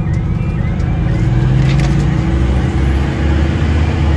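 Fire engine's diesel engine running under way, heard as a loud, steady drone inside the cab. Faint short rising chirps sound about twice a second near the start.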